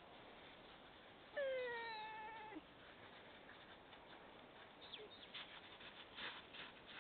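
A single drawn-out animal call about a second in, whine-like, falling in pitch and then held before it cuts off. Near the end, light crunching steps on snow.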